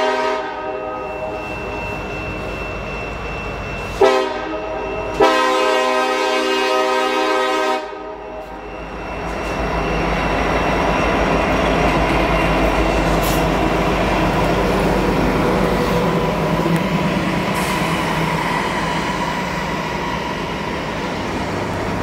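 Diesel locomotive air horn sounding its crossing signal in long blasts, with a short break about four seconds in and the last blast cutting off about eight seconds in. Then the lead diesel locomotives pass close by, their engines rumbling under steady wheel and rail clatter.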